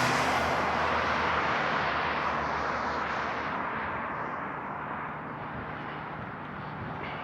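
A motor vehicle passing by, its road and engine noise loudest at first and fading away over several seconds.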